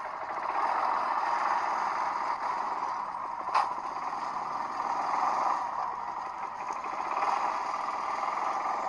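ATV engine running steadily, with one sharp click about three and a half seconds in.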